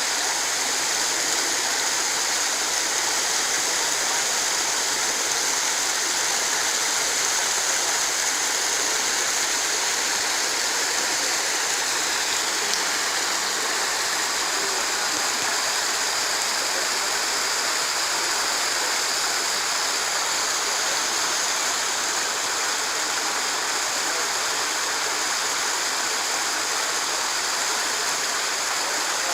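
Mountain stream and waterfall running over rocks: a steady, even hiss of rushing water.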